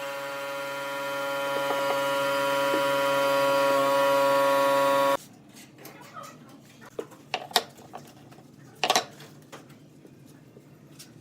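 Wood lathe running with a steady machine whine, cut off abruptly about five seconds in, followed by quiet with a few scattered light taps and clicks.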